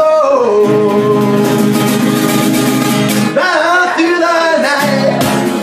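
Man singing with a strummed acoustic guitar. A long held note slides down at the start and is held for about three seconds over the chords, then a further short sung phrase follows.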